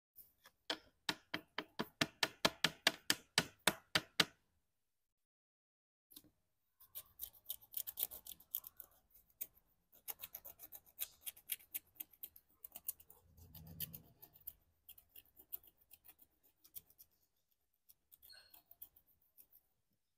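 Wooden stylus scratching the black coating off a scratch-art card. Quick, even strokes come about five a second for the first few seconds, then stop briefly, then return as faster, uneven scratching.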